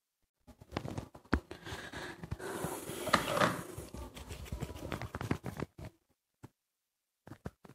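Hands kneading soft all-purpose flour dough over a plastic bowl: irregular soft slaps, squishes and knocks of the dough, busiest in the middle, then a pause of about a second before handling sounds start again near the end.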